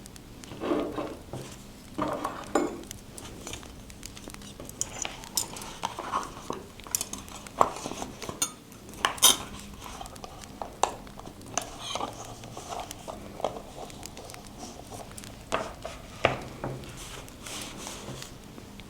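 Scrapbooking supplies handled on a desk: irregular light taps, clicks and short rustles of paper and small tools being picked up and set down.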